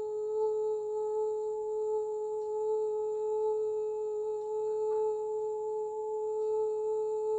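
A steady, unwavering meditation tone with a couple of fainter higher overtones, held without fading, with a few faint ticks over it.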